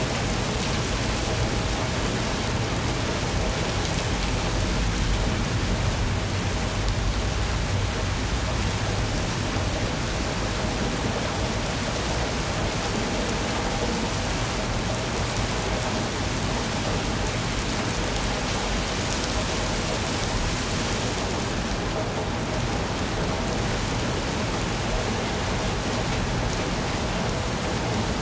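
Steady rain falling: an even, continuous hiss of rain, with a low rumble underneath that is a little stronger in the first part.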